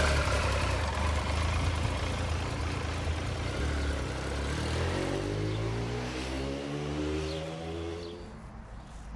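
1999 Triumph Daytona T595's 955cc fuel-injected three-cylinder engine pulling away. About halfway through the engine note climbs steadily in pitch as the bike accelerates, then fades near the end as it rides off.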